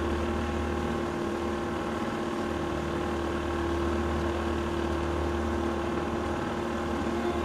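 Motorboat engine running steadily at cruising speed, an even hum with a constant pitch and the rush of water along the hull.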